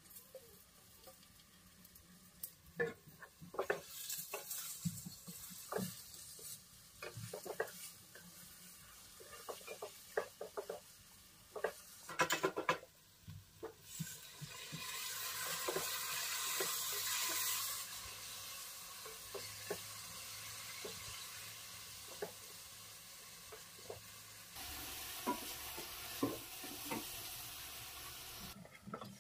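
Spatula scraping and tapping in a frying pan as boiled eggs are stirred through a sizzling masala, with irregular clicks throughout. A louder sizzling hiss swells about halfway through for a few seconds, and comes back near the end.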